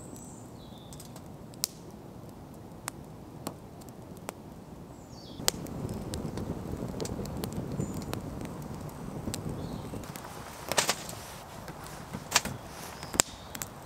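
Wood fire burning in a small perforated metal fire pit, crackling with scattered sharp pops over a low rush of flame that grows louder about five and a half seconds in. A cluster of louder pops comes near the end.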